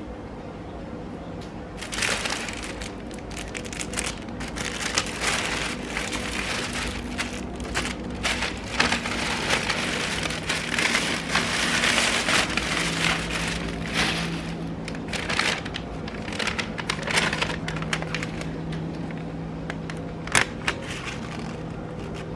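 Irregular rustling and crinkling with many small clicks and knocks, thickest about halfway through, over a faint steady hum.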